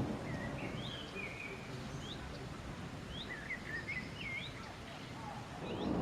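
Small birds chirping in short rising calls over a steady low background noise. Near the end a low rumble of thunder begins to swell.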